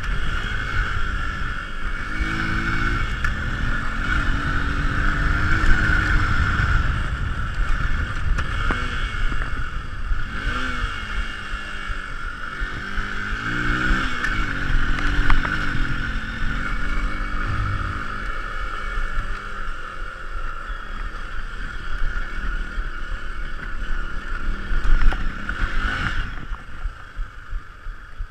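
Hero Impulse's single-cylinder engine revving up and down as the motorcycle is ridden over a dirt track, with a few knocks from the bumps. Near the end the engine falls away as the bike slows to a stop.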